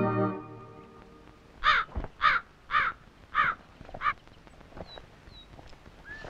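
Keyboard music fading out in the first half-second, then a crow cawing five times, about one call every half-second, with faint small-bird chirps after.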